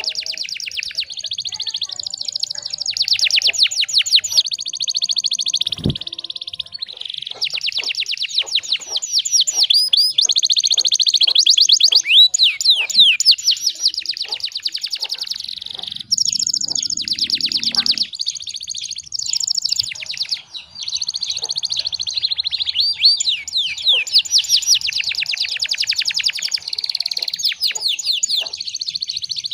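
Domestic canary singing a long, nearly unbroken song of rapid high-pitched trills and rolls, with only brief pauses between phrases. About six seconds in there is a brief low thump.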